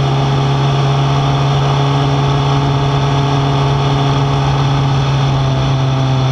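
Suzuki GSX-R 1000 K8's inline-four engine running at steady, low revs as the bike rolls at about 50 km/h, heard from a camera mounted on the bike. Wind and road noise lie underneath.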